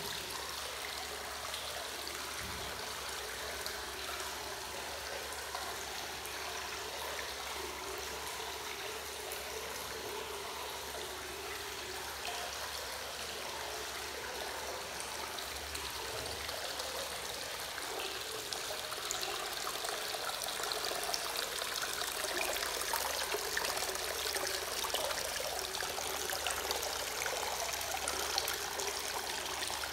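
Hot-spring water pouring from a rock spout into a bath, a steady splashing trickle that grows a little louder in the second half.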